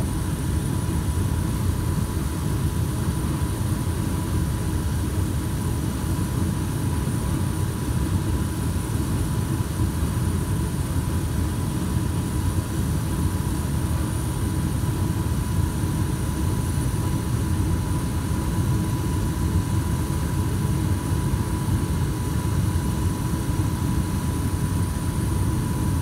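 A 2004 Trane gas furnace running, with its burners firing and its circulating blower on, as a steady low rush with a thin steady whine above it. The furnace has a cracked heat exchanger, shown by the flames rolling out once the blower runs.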